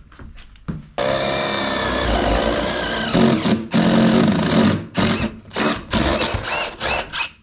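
Power drill boring holes for electrical cable. It runs steadily at first, then in a series of short on-off bursts.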